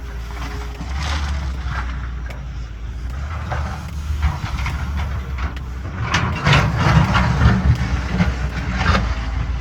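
Diesel engine of a CAT 320BL excavator running steadily. About six seconds in it grows louder, and a run of clattering knocks lasts until near the end.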